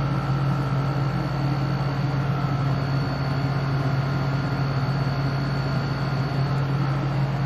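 Steady machine hum with no change: a strong low drone with a faint high whine above it.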